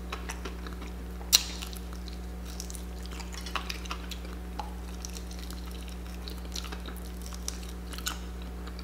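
Popeyes fried chicken being picked apart by hand: faint scattered crackles and ticks from the crust, with one sharp click about a second and a half in, over a steady low hum.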